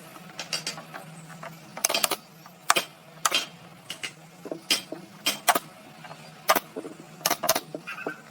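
Irregular sharp knocks and taps of hand tools working wood, one or two a second, some ringing briefly, over a low steady hum.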